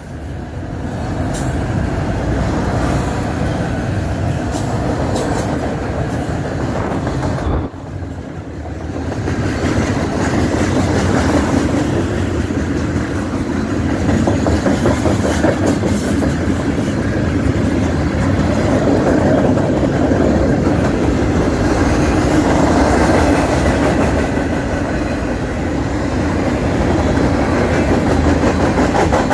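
Freight cars of a passing manifest train (autoracks, a tank car, covered hoppers) rolling by at close range, their steel wheels running steadily on the rails. The sound dips briefly about eight seconds in, then carries on.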